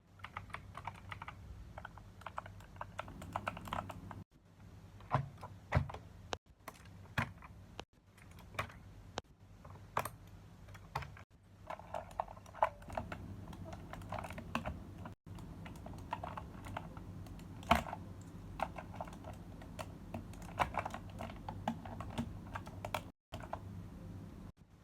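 Typing on a mechanical keyboard: irregular runs of key clicks with a few louder single strokes, over a low steady hum. The sound cuts out completely for a moment several times.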